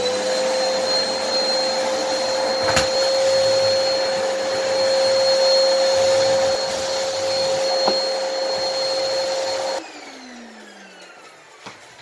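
Canister vacuum cleaner running steadily with a high whine over its rushing air, with two sharp knocks along the way; about ten seconds in it is switched off and its motor whines down.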